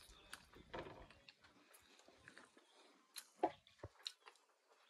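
Faint chewing and eating sounds of people biting into and chewing steamed momos, with scattered small clicks and one brief louder sound a little past halfway.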